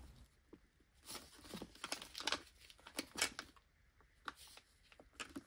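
Faint plastic clicks and rattles of hands working the locking tabs on a macerator pump's housing, a scatter of short snaps and handling noises.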